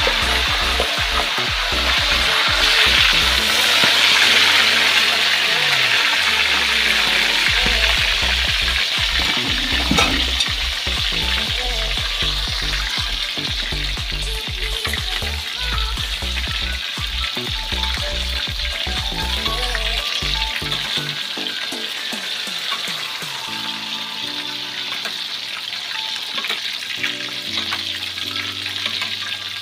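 Whole snakehead fish deep-frying in hot oil in a wok: a steady, loud sizzle that slowly quietens, with a single knock about ten seconds in.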